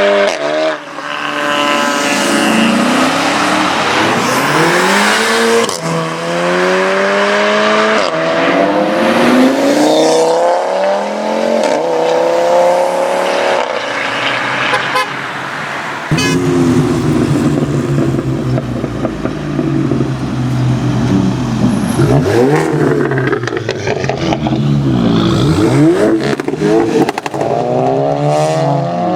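Modified Volkswagen Golfs accelerating hard away, one after another. Each engine note climbs in pitch and drops back at every upshift, with a fresh run starting about halfway through.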